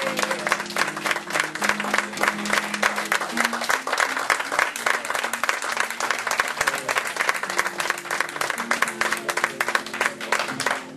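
A congregation applauding with dense clapping, over instrumental music holding steady low chords.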